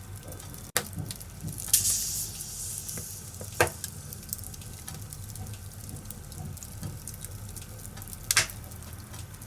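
Wood fire crackling in a fireplace: a steady low burning noise with a few sharp pops. The loudest pop comes about two seconds in and is followed by a short hiss.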